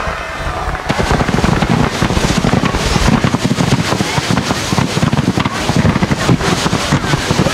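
Barrage of fireworks: many bangs and crackles in rapid succession, starting about a second in.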